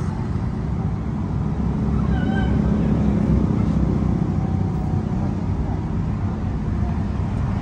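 Electric hair clipper running steadily as it cuts a fade at the nape, over a steady rumble of street traffic. About two seconds in, a short high-pitched cry sounds briefly.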